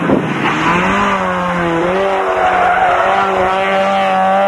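Rally car engine at high revs going by, its pitch wavering and then climbing steadily over the last couple of seconds.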